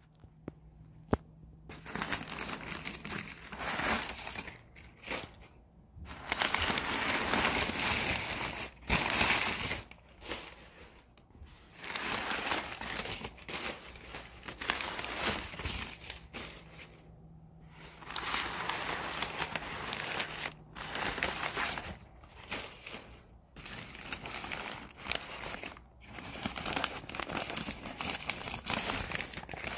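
Crumpled newspaper packing crinkling and rustling in irregular bursts as it is pulled by hand out of a cardboard box, starting about two seconds in.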